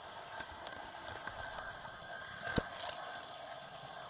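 Model train carrying an onboard camera running along the track: a steady rolling rattle and motor noise, with a sharp knock about two and a half seconds in and a smaller one just after.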